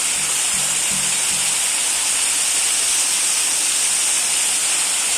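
Borehole water pouring through a stacked degassing tower of mesh screens and falling as spray into a concrete pond: a steady hiss of splashing water. The water is being broken up over the screens to strip out dissolved nitrogen and take up oxygen.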